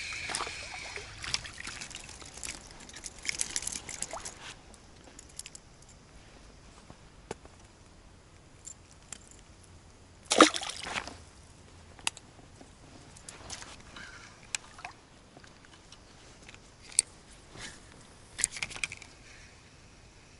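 Water splashing and sloshing as a hooked fish is played and landed on ultralight spinning tackle. One short, loud splash comes about ten seconds in, with scattered smaller splashes and clicks.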